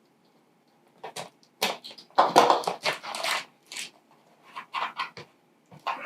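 Cutting through the tape and cardboard of a product box: a string of short, irregular rasps starting about a second in.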